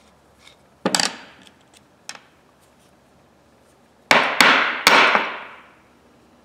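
Metal tool parts clacking on a hard bench top as an old ratchet is taken apart: one sharp clack about a second in, a fainter tap about two seconds in, then a loud cluster of three sharp metallic clacks with a short ring about four seconds in.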